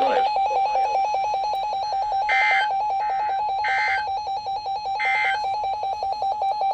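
NOAA Weather Radio SAME end-of-message signal: three short bursts of two-tone digital warbling, about a second and a half apart, marking the end of the warning. A steady, rapidly pulsing buzz tone runs underneath.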